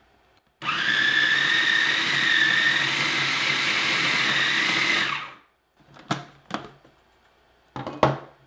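Food processor motor running with a steady high whine, blending salt and honey into homemade peanut butter; it switches on suddenly about half a second in and winds down after about four and a half seconds. A few short clicks and knocks follow.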